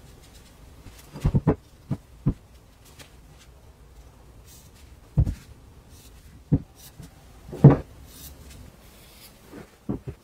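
Scattered knocks and clacks of a steel block and a metal combination square being set down and shifted on a wooden workbench, the loudest near the middle, with a few faint scratchy strokes of a marker drawing lines on the steel.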